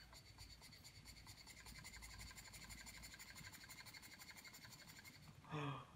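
Stuart Turner 10H model mill engine running on breath blown into its inlet: a faint, fast, even ticking of its piston and valve gear, with a thin steady whistle of air.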